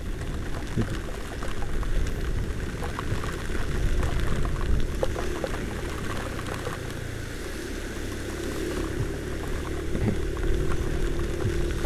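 Steady rushing noise of a Honda Vario 125 scooter riding through a heavy rainstorm: wind on the microphone, rain and water off the wet road, with small rain ticks throughout. A steady hum comes in about seven seconds in.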